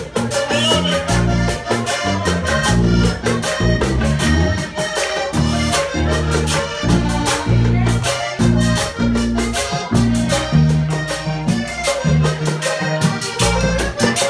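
Live Colombian vallenato-style band: a button accordion plays the melody over a hand drum and a scraper keeping a steady, driving beat, with changing low bass notes underneath.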